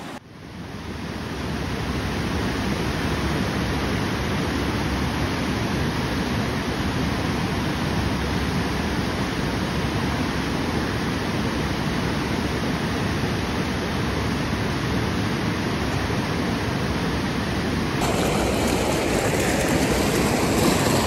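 Fast-flowing stream rushing steadily, a loud even wash of water. It turns slightly louder and brighter about three seconds before the end.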